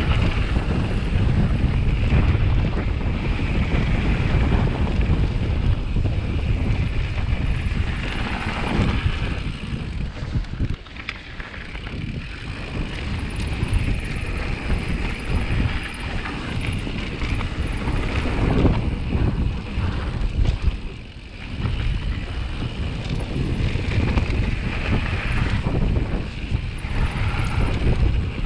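Wind rushing over an action camera's microphone during a fast mountain-bike descent on a gravel trail, mixed with the rumble of the tyres on loose gravel. The noise eases briefly twice, about a third of the way in and again about two thirds of the way in.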